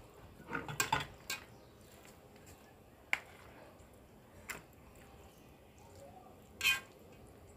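A spoon clinking and scraping against a bowl and an aluminium baking dish as ground meat is spooned in for a lasagna layer: a short cluster of taps about a second in, then single clicks every second or so.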